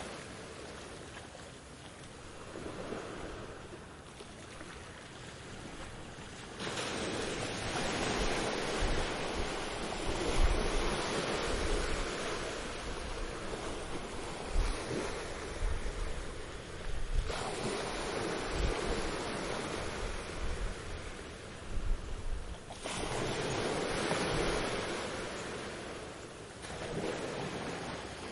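Ocean waves breaking and washing up a beach, rising and falling in surges: a loud stretch about a quarter of the way in, a lull, then another surge near the end, with a low rumble of surf underneath.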